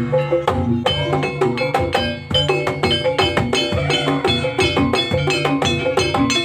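Live jaranan gamelan music: a quick, steady stream of drum strokes under short pitched metallophone and gong-chime notes, played with no break.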